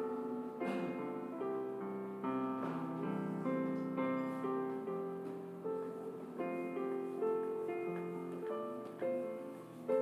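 Background piano music: single notes and chords struck about once a second, each ringing on and fading before the next.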